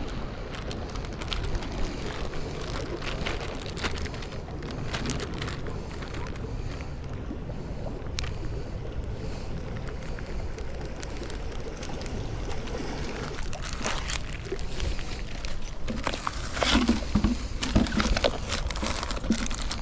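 Water sloshing and washing against shoreline rocks over a steady low rumble, with scattered clicks. Louder knocks and rustling come in the last few seconds.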